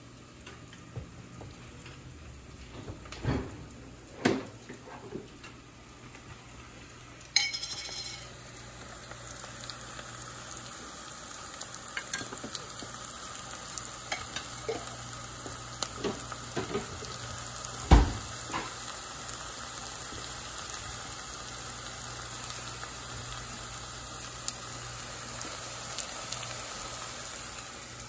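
Onions and spices sautéing in a pan while being stirred: a sizzle that jumps up suddenly about seven seconds in and then runs on steadily, with the stirring utensil knocking against the pan several times, loudest about eighteen seconds in.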